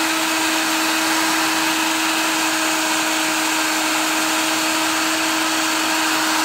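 Philips hand-held hair dryer running steadily: a constant motor hum over the rush of blown air.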